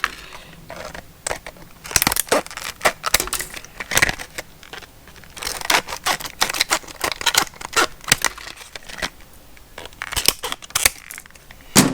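Scissors cutting open a pack of oscillating-tool blades: irregular sharp snips with crinkling and tearing of the packaging.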